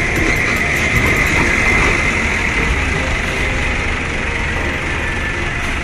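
Large high-deck coach bus's diesel engine running as the bus drives slowly past, a steady rumble that grows slightly fainter in the second half as it moves away.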